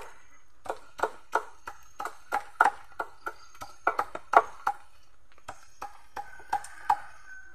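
Large knife chopping cassava root on a wooden board: an irregular series of sharp knocks, two or three a second, pausing briefly about five seconds in.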